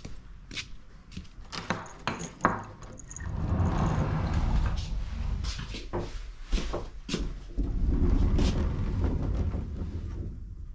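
Footsteps and scattered clicks, with two spells of low rumble each lasting a couple of seconds, about three seconds in and again near eight seconds: wooden sliding doors rolling along their tracks.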